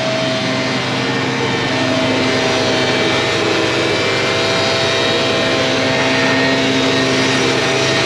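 Gas-powered leaf blower running steadily at high throttle, a constant engine whine over the rush of air, blowing chaff and dust off a combine.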